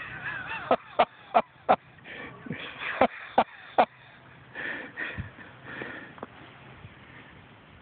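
People's voices in short, loud bursts, about three a second in two runs, like laughing or whooping, dying away after about six seconds.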